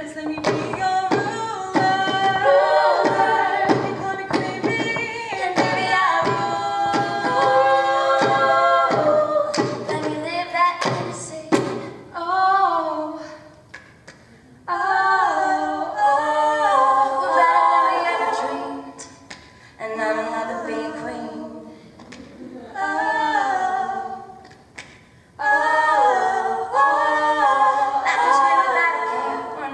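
Female voices singing a cappella in close harmony, kept to a steady percussive beat about twice a second. After about twelve seconds the beat stops and the singing goes on in short phrases with brief pauses between them.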